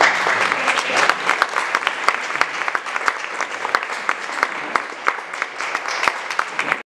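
Audience applauding, the separate claps distinct, until the sound cuts off suddenly near the end.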